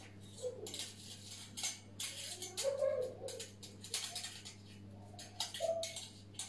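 Plastic shower curtain crinkling and its hooks rattling against a telescopic shower rod as the curtain is handled and hung, in irregular short rustling bursts.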